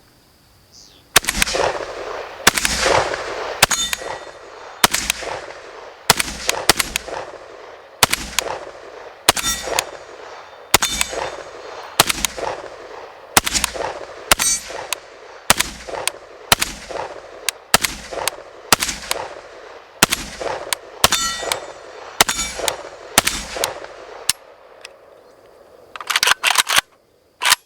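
A long series of rifle shots, roughly one to two a second at a semi-automatic pace, each ringing out with a long echo and tail, stopping a few seconds before the end.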